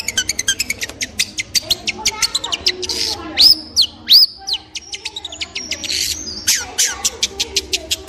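Long-tailed shrike singing: a fast run of sharp, high chipping notes, about six a second, broken a little over three seconds in by two louder arched whistles, then a short lull before the rapid chips resume.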